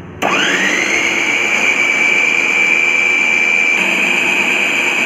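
Electric food processor motor switching on, its whine rising quickly as the blade spins up and then running steadily, beating egg white and garlic while refined oil is drizzled in to emulsify mayonnaise.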